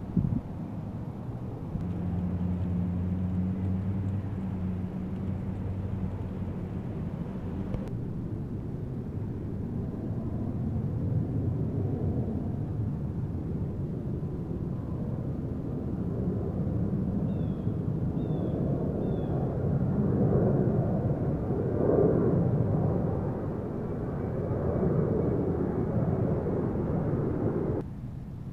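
A steady low engine drone for the first several seconds, then a rougher low outdoor rumble that swells and fades, with three faint short high bird chirps about two-thirds of the way through.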